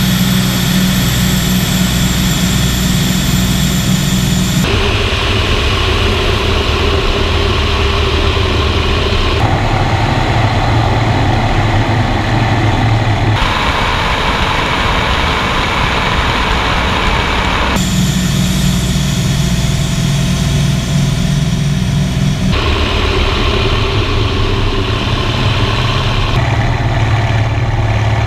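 Warbird piston engines heard in flight from onboard cameras: the F4U-4 Corsair's Pratt & Whitney R-2800 radial and the P-38 Lightning's twin Allison V-1710 V12s, a loud steady drone. Its pitch and character change abruptly every four to five seconds as the sound switches between the two aircraft's cameras.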